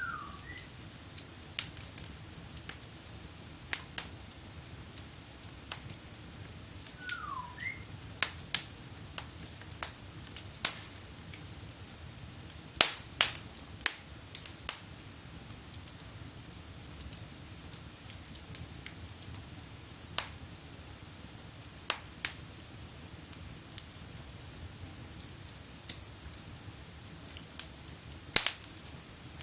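Wood fire in a fireplace crackling, with irregular sharp pops over a steady low rush of burning. Twice a brief falling whistle is heard, at the very start and about seven seconds in.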